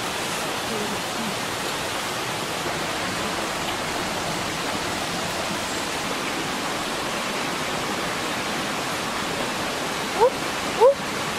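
Steady rushing of stream water. Faint voices come and go, and two short rising calls sound close together near the end.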